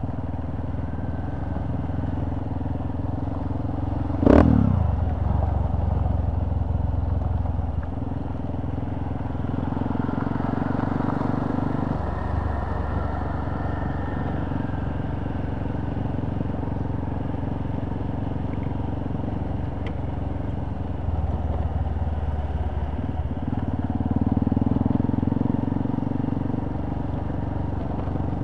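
Motorcycle engine running while riding, its note stepping up and down several times with the throttle. A single sharp knock stands out about four seconds in.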